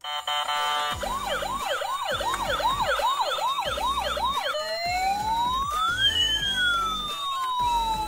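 Toy ambulance's electronic siren: after a brief steady tone it sounds a fast yelp, about three rising-and-falling sweeps a second, then about four and a half seconds in switches to a slow wail that rises and falls over a few seconds.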